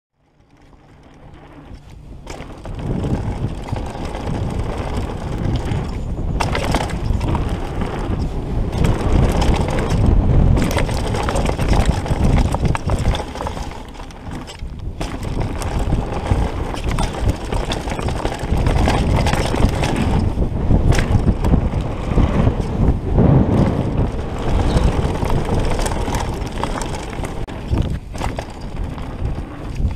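Downhill mountain bike descending a dry dirt trail, heard from a camera on the rider: tyres rolling over dirt with a steady rush of noise, and frequent knocks and rattles from the bike. It fades in over the first couple of seconds.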